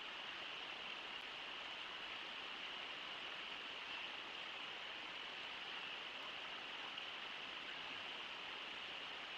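Steady rush of water pouring over Brooks Falls, an even hiss with no separate splashes or other sounds standing out.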